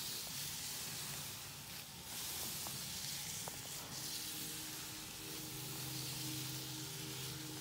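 Gritty hiss of gloved hands rubbing a salt scrub over oiled skin. Soft sustained music tones come in about halfway.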